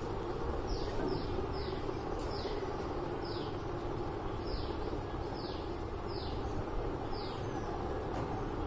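A bird calling over and over with short, high notes that each fall in pitch, about one a second, over steady background noise.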